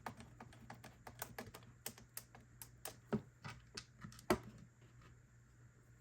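Irregular light clicks and taps of a Phillips screwdriver driving small screws into the tube's end cap, with one louder knock about four seconds in; the clicking stops soon after. A faint steady low hum runs underneath.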